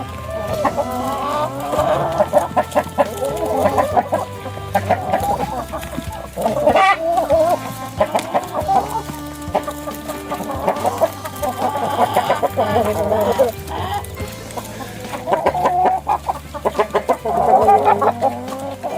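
Chickens clucking, many birds calling over one another throughout, with low background music underneath.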